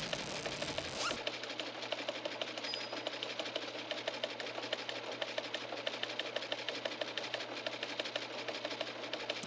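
A fast, even clicking rhythm, machine-like, with a swoosh at the start that ends in a short rising tone about a second in.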